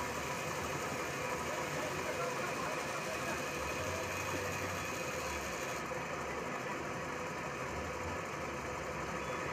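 Steel scissor blade being ground on a large motor-driven grinding wheel: a steady hiss of metal on the abrasive over the hum of the running wheel. About six seconds in the sharp hiss drops away as the blade comes off the wheel, and the wheel keeps running.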